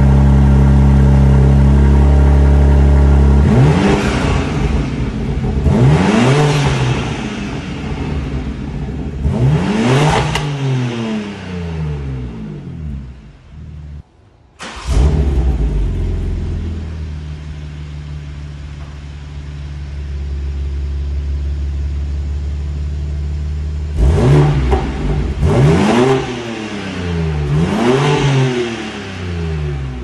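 BMW M4 Competition's twin-turbo S58 straight-six exhaust, through a Valvetronic Designs axle-back on the stock midpipe, idling and then free-revved three times with the exhaust valves open. After a short break about halfway, it idles again and is revved three more times.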